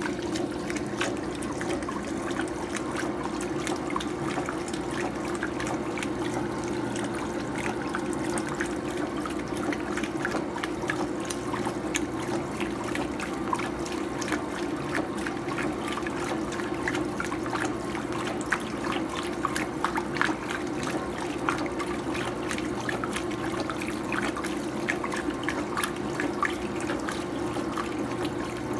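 Electrolux Prosdócimo washing machine on its rinse: water running and splashing in the tub over a steady low hum.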